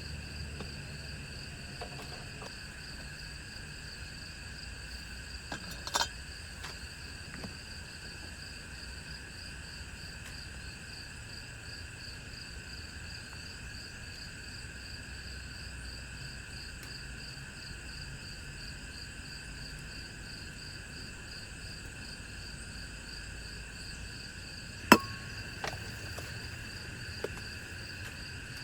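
Steady night chorus of insects, several high shrill tones at once, one of them pulsing rapidly. A sharp click or knock cuts through about six seconds in, and a louder sharp knock comes near the end, followed by a couple of fainter ticks.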